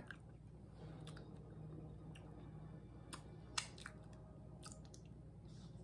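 Close-miked chewing of a mouthful of food: quiet, with scattered soft wet mouth clicks, the loudest about three and a half seconds in, over a faint low hum.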